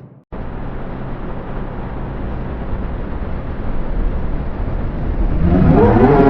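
A steady, noisy drone with a low hum, a vacuum-cleaner-like effect laid over a cartoon soundtrack. It cuts in after a brief dropout and swells near the end as gliding pitched tones join it.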